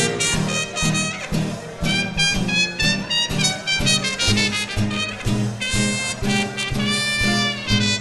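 Small-group swing band playing an instrumental passage, with a trumpet playing held and moving melody notes over the rhythm section's steady beat.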